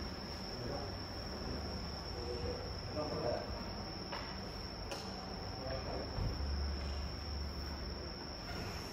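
A steady high-pitched tone with a low hum beneath, faint distant voices around the middle, and a single light click about five seconds in.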